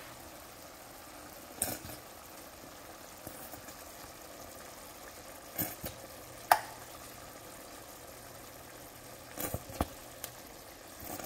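A pan of chicken wings in beer sauce simmering with a steady, quiet sizzle, broken by a few light clicks of a metal spoon against the pan.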